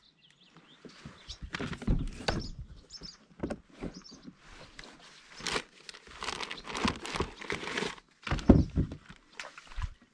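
Irregular rustling, scraping and knocking on a plastic fishing kayak as the angler shifts and moves on board, with heavier thuds about two seconds in and again near the end.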